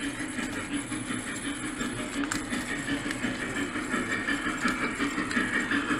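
Model steam locomotive and passenger cars running on three-rail O-gauge track: a steady mechanical running noise with a low beat repeating about two to three times a second, growing a little louder as the train comes past.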